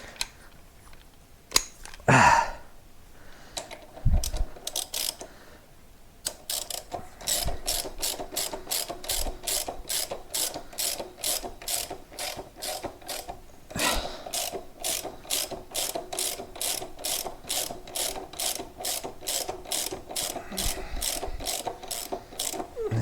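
A ratchet wrench clicking in a long even run, about two to three clicks a second, as the front axle of a Royal Enfield Guerrilla 450 is unscrewed. A few knocks come first, before the ratcheting starts.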